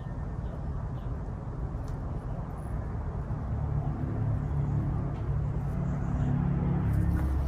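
Low engine rumble of a motor vehicle. Its hum swells during the second half, with a few faint clicks of wire being handled.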